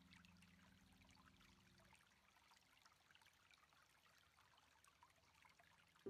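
Near silence: a faint low held tone fades out about two seconds in, leaving only a faint crackly hiss.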